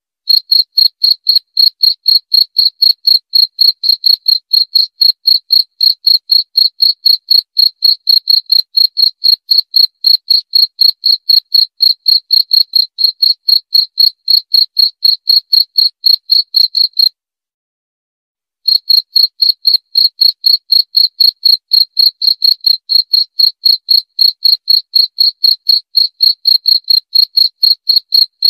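Cricket chirping in an even, rapid rhythm of about four to five high, thin chirps a second, with nothing else heard between them. The chirping stops for about a second and a half past the middle, then starts again.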